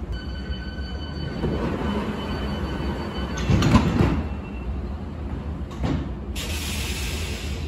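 London Underground S8 Stock train's door-closing warning tone, followed a little over three seconds in by the sliding doors closing with a thump. A smaller knock follows, then a steady hiss near the end.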